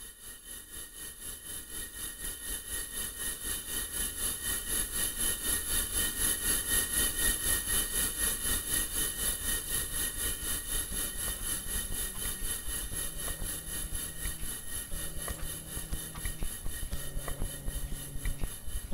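A pulsing, hissing noise drone fades in over the first few seconds. From about eleven seconds in, low held notes join it, stepping from one pitch to another.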